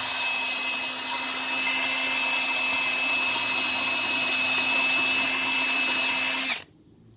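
Power drill spinning a wire brush against brake hardware, scrubbing it clean in one steady run. It holds a constant speed and stops abruptly near the end.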